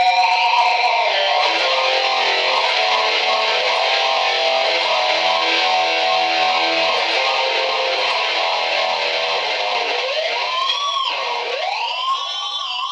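Dimebag Dixie Rebel electric guitar played loud through an amplifier, holding ringing chords and notes. Near the end the pitch dives down, swoops back up and wavers.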